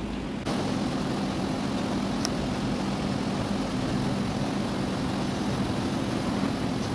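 Steady machinery drone of a power plant boiler area: a constant hum with a low steady tone, a little louder from about half a second in, and a single faint click about two seconds in.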